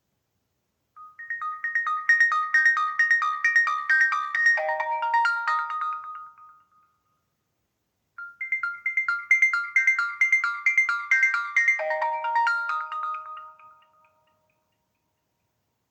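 A Nokia 1680 classic playing one of its built-in polyphonic ringtones through its loudspeaker. It is a quick run of bright notes that drops to a few lower notes at the end, played twice with a pause of about two seconds between.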